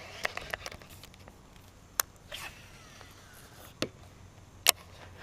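Several sharp clicks and taps of close handling noise: a quick cluster at the start, then single louder clicks about two seconds in, near four seconds, and the loudest near the end.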